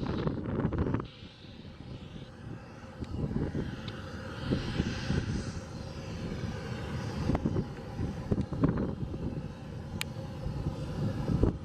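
Jet airliner engines running as the plane comes in to land, a steady rush that swells about halfway through. Wind buffets the microphone with gusty low rumbles.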